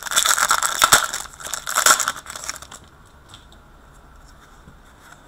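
Trading-card pack wrapper crinkling and rustling as it is handled and opened, for about two seconds, then only faint card-handling noise.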